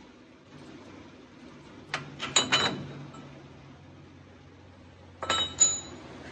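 Differential carrier and ring gear being worked loose in a Ford Super Duty rear axle housing: sharp metallic clinks that ring briefly, three close together about two seconds in and two more about five seconds in.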